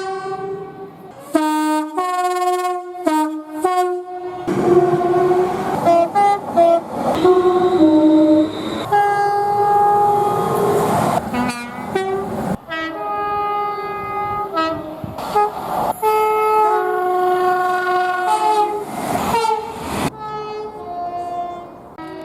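Train air horns sounding chords of several notes, in a series of blasts from short toots to long holds. The horn's pitch and chord change suddenly a few times, as one train's horn gives way to another's.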